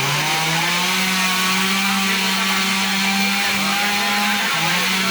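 Chainsaw running at high revs through a cut, its pitch climbing at the start and holding steady, then dipping briefly twice near the end as the load on the chain changes.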